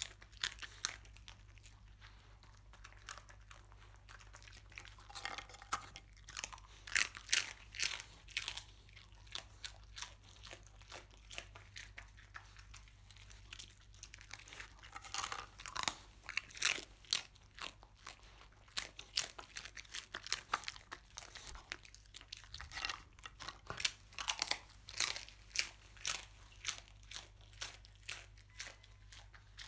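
A dog crunching and chewing pieces of scorched rice crust (nurungji): bursts of sharp, crisp crunches with quieter pauses between them.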